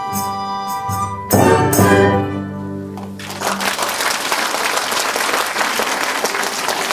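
Chinese traditional orchestra holding a chord, then ending the piece with a loud final chord and two heavy percussion strikes about a second and a half in, which ring out and fade. Audience applause starts about three seconds in and continues steadily.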